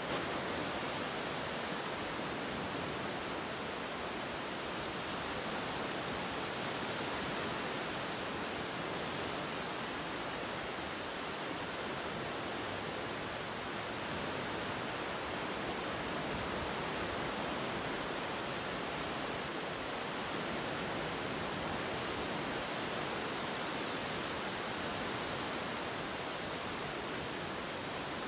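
Steady, even rushing noise like running water or surf, continuous and without breaks.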